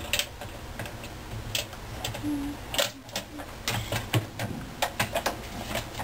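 Irregular light clicks and taps of metal pliers and a bolt against the plastic agitator of a top-loading washing machine while the bolt is worked back into its hole. The clicks come in a quicker cluster about four to five seconds in.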